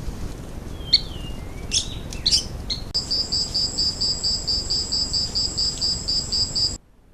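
A few short bird calls, then an insect calling in steady high pulses, about four a second, over a continuous high hum. It cuts off abruptly near the end.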